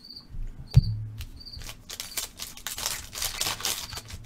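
A sharp click about a second in, then crinkling and rustling of a foil trading-card pack being opened and its cards handled.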